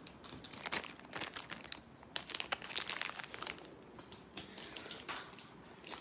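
Small clear plastic bag crinkling as it is handled and opened by hand to get the game piece out, in quick irregular crackles that are busiest through the first half.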